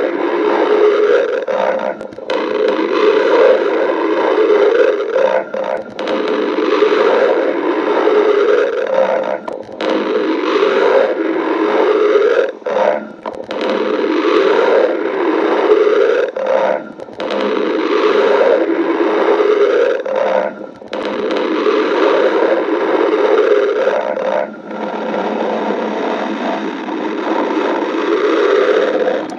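A badger's stomach growling: loud, continuous gurgling, broken by short pauses every few seconds.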